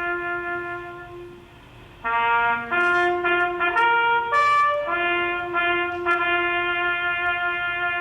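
Solo trumpet playing a slow ceremonial bugle call: a long held note that fades out, a brief break, a run of shorter notes, then another long held note.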